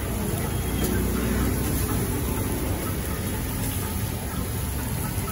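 Steady street din: a low rumble of passing traffic with an even, rain-like hiss over it.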